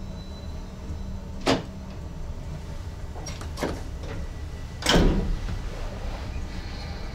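NS ICM electric multiple unit running, a steady low rumble heard from the driver's cab, broken by a few sharp knocks about one and a half, three and a half and five seconds in, the last the loudest.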